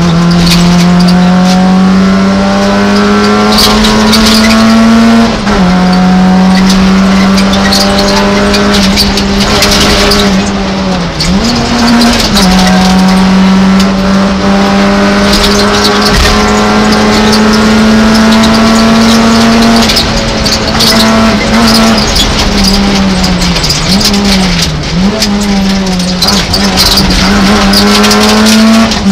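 Peugeot 106 F2012 rally car's engine heard loud from inside the cabin, driven hard at steady high revs. Its pitch climbs slowly, drops sharply about five seconds in and again around twenty seconds as gears change, and dips and comes back around eleven and twenty-four seconds as the throttle is lifted and blipped. Road and wind noise run underneath.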